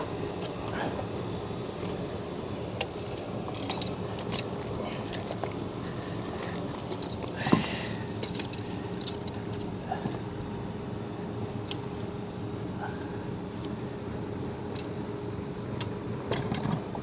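Occasional light metallic clinks and knocks of the pool pump motor and seal plate assembly being worked back into the pump housing, over a steady background hum. A brief louder scrape comes about seven and a half seconds in.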